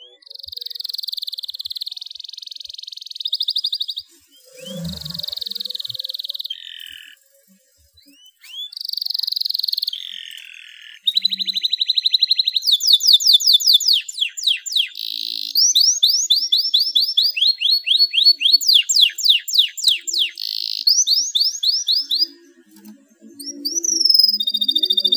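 Domestic canary singing in breeding condition: phrases of long rolling trills, then from about halfway rapid strings of quick falling notes, with short pauses between phrases.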